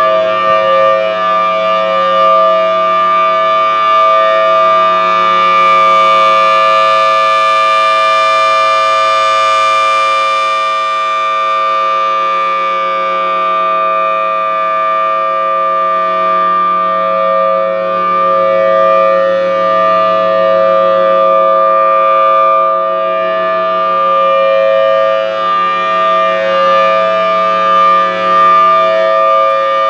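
Federal Signal Thunderbolt 1000T warning siren sounding the Alert signal: a loud, steady, unbroken chord of two close tones. The upper tones slowly swell and fade as the rotating siren head turns.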